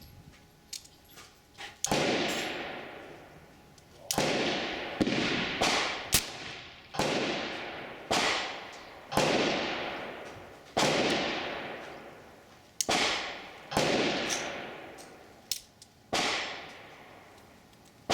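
Replica Colt Paterson percussion revolver being cocked and fired about ten times in a row, each hammer fall a sharp snap with a fading ring, with faint cocking clicks before the first. The caps fail to set off the charges: misfires, which the uploader puts down to a weak mainspring or insensitive caps.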